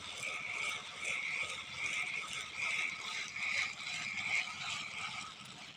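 Spinning reel being cranked to retrieve a lure: a steady mechanical whir and rattle from the reel's gears, swelling about every three-quarters of a second with each turn of the handle, then stopping near the end.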